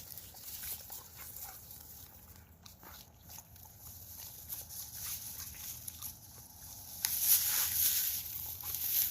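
Labrador retriever's quiet mouth and breathing noises, then about seven seconds in a louder, breathy, hissing sound lasting about two seconds, which the owner takes as a sign of an upset tummy.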